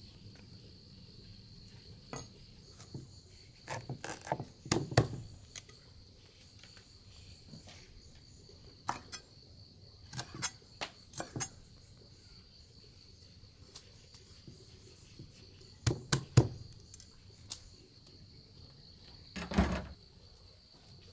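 Steady high-pitched insect drone, with scattered sharp knocks and clatters over it; the loudest come in clusters about four to five seconds in, around sixteen seconds, and near the end.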